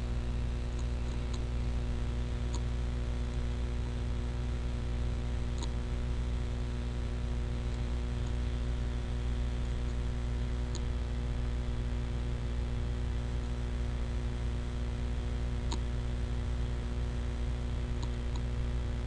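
Steady low electrical hum with a handful of faint, scattered clicks.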